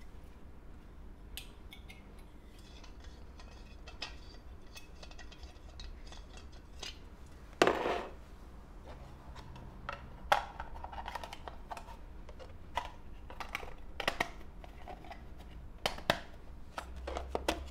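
Handling sounds of camping gear on a wooden floor: scattered light clicks and taps, with one louder thump about two-thirds of the way to the middle as a metal isobutane gas canister is set down on the floor. More taps and clicks follow near the end as a small hard case is handled.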